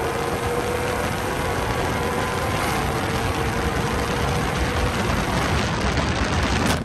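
Wind rush and tyre and road noise at highway speed, caught by a phone held out the window of a moving pickup. Under it runs a steady engine drone that fades out about five seconds in. The sound cuts off suddenly near the end.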